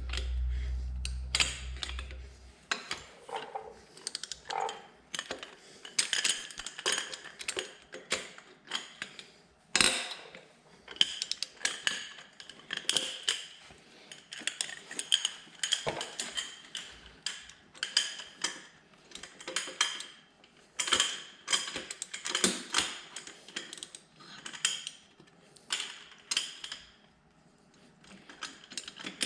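Hand socket ratchet clicking in repeated runs of quick ticks as it is swung back and forth on fasteners, with a sharper metal knock about ten seconds in.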